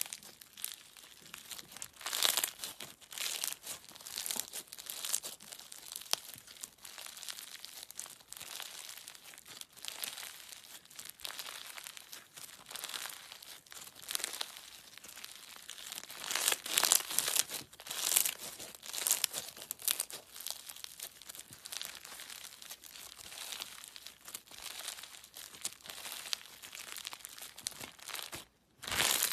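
Slime being squeezed, poked and stretched by hand, giving a run of irregular crackling and popping, busiest a couple of seconds in and again a little past halfway. The sound cuts out briefly near the end.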